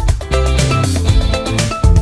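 Upbeat background music with plucked strings and a steady beat.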